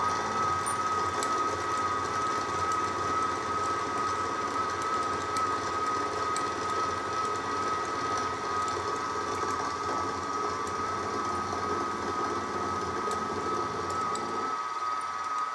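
Sieg SX2P mini mill running with its end mill cutting along the edge of an aluminium block: a steady, high motor whine over the noise of the cut. The lower cutting noise fades away about a second before the end while the spindle keeps whining.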